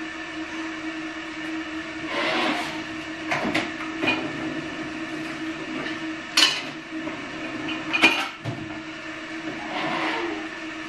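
A few sharp clinks and knocks of pots and utensils being handled, the loudest about six and eight seconds in, over a steady low hum.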